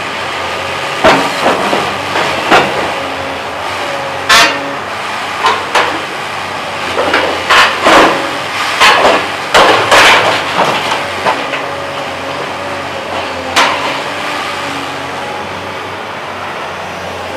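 Volvo tracked excavator's diesel engine running with a steady hum while it tears into a building, with repeated crashes and crunches of breaking debris, thickest in the first two-thirds and one last crash about three-quarters through.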